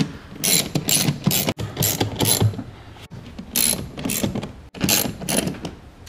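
Hand ratchet with an 8mm socket clicking in repeated short bursts as it drives the screws that hold the engine-bay cowl panel.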